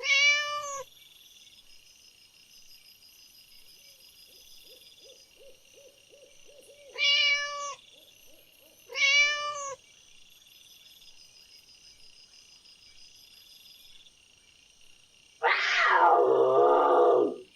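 A domestic cat meowing three times, short arched meows several seconds apart. Near the end, a louder, longer call that falls in pitch comes in from another animal.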